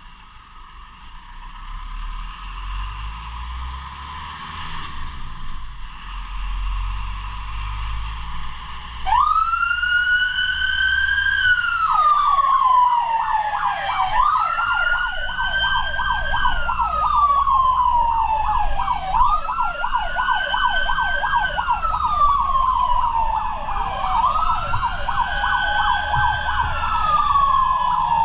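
Fire truck engine running, then about nine seconds in the emergency siren starts up loud: a wail that rises, holds and falls about every five seconds, with a fast warbling yelp running beneath it.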